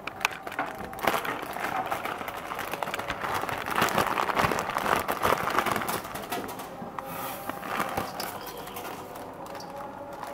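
Water boiling in a steel wok, with a plastic instant-noodle packet crinkling as the noodle block is taken out and dropped in. The crinkling is loudest a few seconds in.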